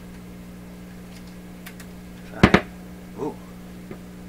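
Powered-up PYE 39HC valve shortwave receiver with a steady hum, broken by two loud sharp pops close together about halfway through, then a brief short sound and a faint click, while the intermittent fault is being hunted.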